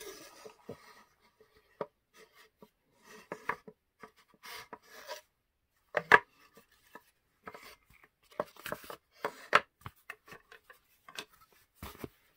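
Handling noises of a miniature wooden dollhouse bed and its padded mattress: soft rubbing with scattered small taps and knocks against the wooden tabletop, the loudest about six seconds in.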